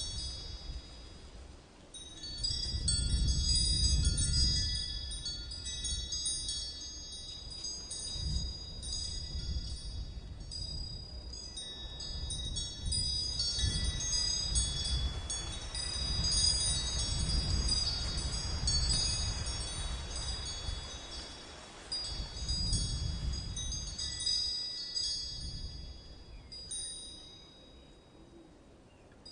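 Wind chimes tinkling with many overlapping high, ringing notes, over a deep low rumble that swells and fades every few seconds.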